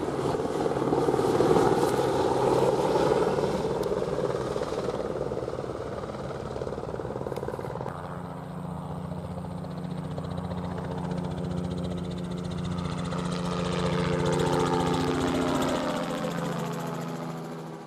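An engine running, loudest near the start and again about three-quarters of the way through, with a steady hum in the second half; it cuts off suddenly at the end.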